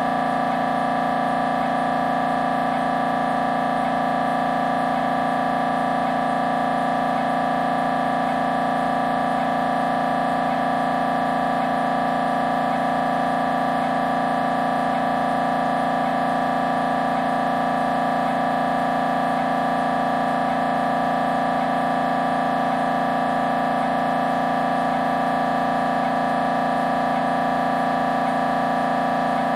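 Siemens Magnetom Symphony Maestro Class 1.5 T MRI scanner running an imaging sequence: the gradient coils give a loud, steady electronic drone of several fixed tones that does not change.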